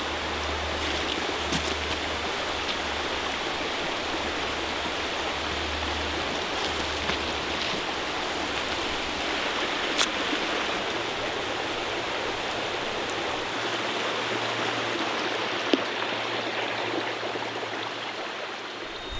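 Creek water running steadily over a stony bed, with a few brief soft clicks.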